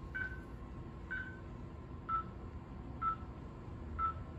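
Bedside patient monitor's pulse-oximeter beep sounding about once a second, in time with the heartbeat. The beep's pitch steps down slightly about two seconds in. A faint steady tone and low equipment hum run under it.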